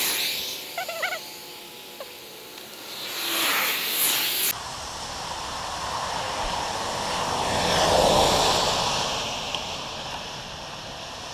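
Cars passing on a rain-soaked road, their tyres hissing through the water. One swells and fades at the start and another about three seconds in. The sound then cuts abruptly to a steadier rush with low wind rumble on the microphone, which swells again around eight seconds in.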